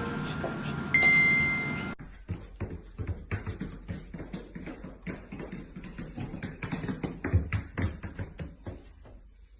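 A bell-like electronic chime rings and cuts off abruptly about two seconds in. It is followed by a fast, irregular run of light taps and clicks, several a second, fading near the end.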